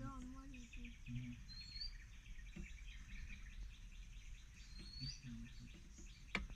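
Wild outdoor ambience: insects buzzing in a steady pulsing chorus, with two short rising bird chirps and a low steady rumble underneath. There is one sharp click near the end.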